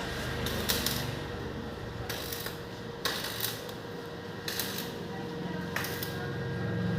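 Metalwork sounds: short bursts of hissing crackle a few times, with light metallic clicks and clinks between them.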